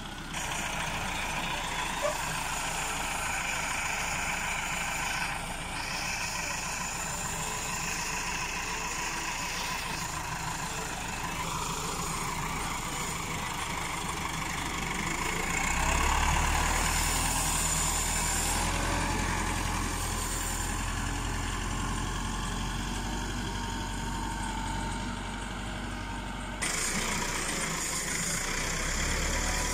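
Massey Ferguson 385 tractor's diesel engine running under load as it pulls a laser land leveler through dry soil. The tone and loudness change abruptly a few times, with a heavier low rumble through the middle section.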